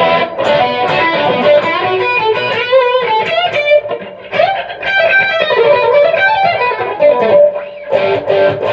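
Electric guitar played through a Gallien Krueger 250RL amp head on its overdrive channel with the gain up, bridge pickup and chorus on: lead lines with bent and held notes, with a lot of bark.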